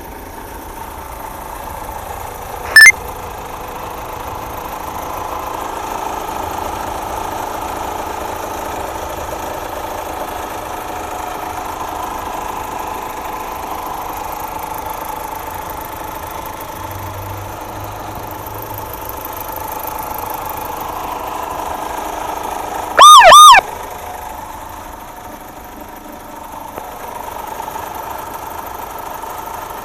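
Car engine idling with its hydraulic valve lifters knocking. A short loud beep about three seconds in, and a loud double pitched chirp, rising then falling, about 23 seconds in.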